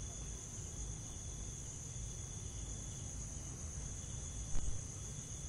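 Night insect chorus: a steady high-pitched trill, with a second, lower insect call pulsing on and off about once a second, over a low rumble. A short knock about four and a half seconds in.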